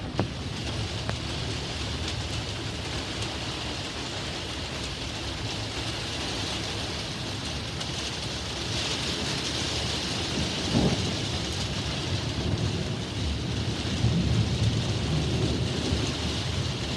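Heavy thunderstorm rain pouring steadily, with rolling thunder rumbling underneath that grows stronger in the last few seconds.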